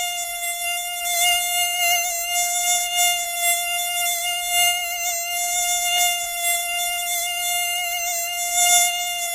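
Mosquito wings whining: one steady, high-pitched buzz with a slight waver in pitch and loudness.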